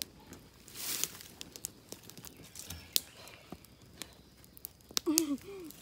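Quiet rustling of dry leaf litter underfoot with scattered sharp clicks and taps. About five seconds in there is a brief low call.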